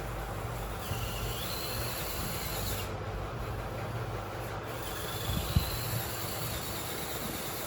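Small electric motor and gears of a radio-controlled toy vehicle running, a steady hiss with a faint high whine that steps up in pitch about a second in, and a light knock later on.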